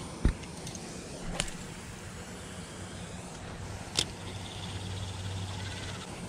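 Spinning rod and reel handled close to the microphone: a heavy thump near the start, then two sharp clicks, and a low steady whir in the second half as the reel handle is cranked.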